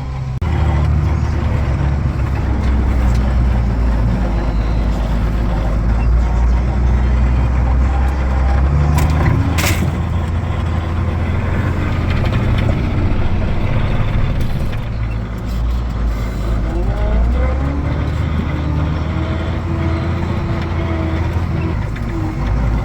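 Farm tractor engine running steadily under load while pushing drifted snow, with a single sharp clank about ten seconds in.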